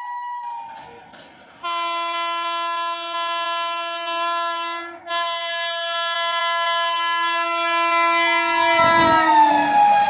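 WAP-7 electric locomotive's horn. A fainter blast dies away in the first second, then a long, loud blast starts just under two seconds in, breaks off briefly about halfway, and drops in pitch near the end as the locomotive passes, with the rumble of the train going by.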